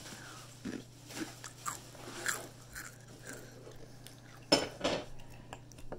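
Close-up crunching and chewing of Flamin' Hot Doritos tortilla chips: a string of small crunches, with two louder ones about four and a half seconds in.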